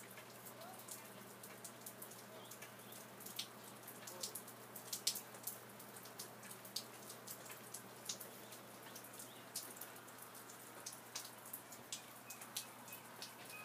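Rain falling, with a steady light hiss and many irregular sharp raindrops and drips tapping close by.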